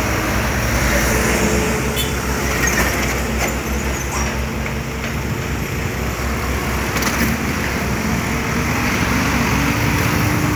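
Road traffic passing close by: light diesel trucks and motorcycles driving past one after another, their engines and tyres making a steady, continuous rumble, with a few short clicks over it.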